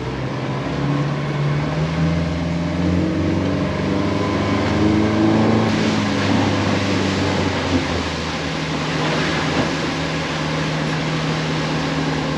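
Outboard engine of a Stabicraft 2100 Supercab aluminium boat running under way. The engine note rises over the first five seconds or so, then holds steady at speed, over a constant rushing hiss of water and wind.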